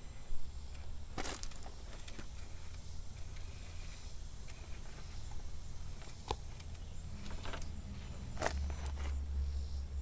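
Axial SCX10.3 RC rock crawler working over rock: a few scattered clicks and knocks over a low steady rumble.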